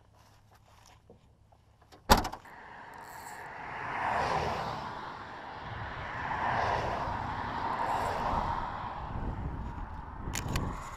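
A car's trunk lid slammed shut about two seconds in, then the rush of cars passing on the road, swelling and fading several times.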